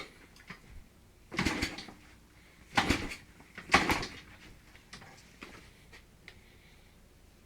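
Three short, noisy clunks: one about a second and a half in, the next about 1.4 s later, the last about a second after that, with a few faint ticks between.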